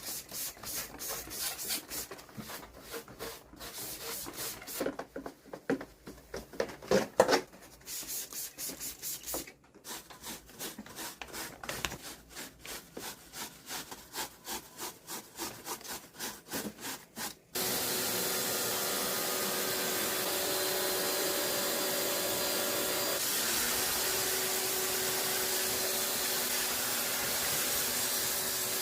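Rhythmic scrubbing or rubbing strokes, about two a second, on parts of a wall-mounted air conditioner being cleaned. About 17 seconds in, a motor starts abruptly and runs steadily with a hum.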